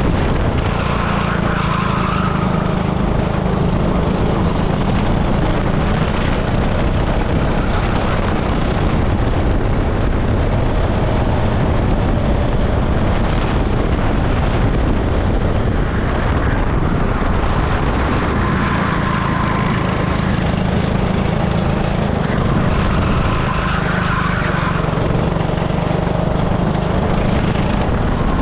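An 18 hp super kart's engine running hard at racing speed, heard from onboard the kart, its note shifting as it comes off and back onto the throttle.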